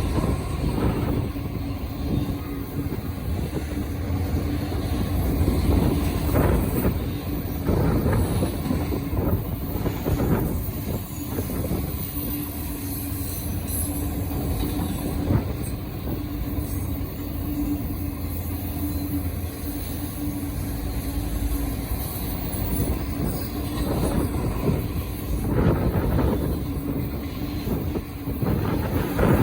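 Diesel freight train running past with a steady drone through most of the passage, fading about three-quarters of the way in, under a loud rumble of wind on the microphone.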